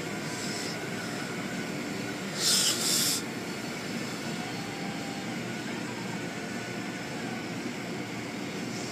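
Automatic car wash heard from inside the car: steady rushing of water and machinery, with a louder hiss of spray for under a second about two and a half seconds in.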